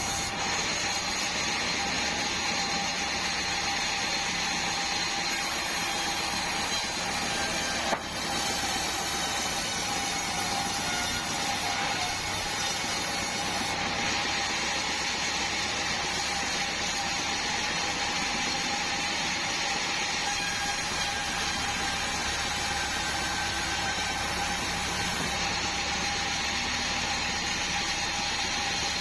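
Band sawmill running steadily, a continuous machine noise with a few steady whining tones and one sharp click about eight seconds in.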